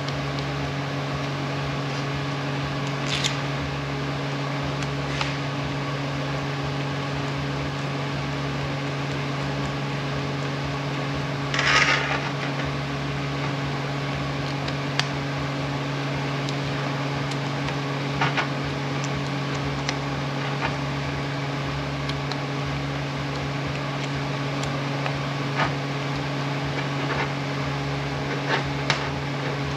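Scattered small clicks and knocks of metal parts being handled during reassembly of an air impact wrench, with a louder short clatter about twelve seconds in, over a steady mechanical hum.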